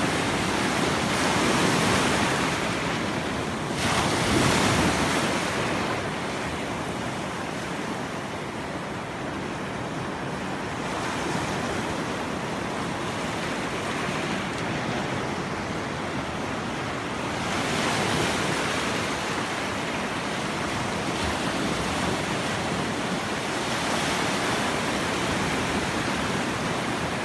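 Ocean surf washing onto the shore, a steady rush that swells louder several times as waves break, with wind on the microphone.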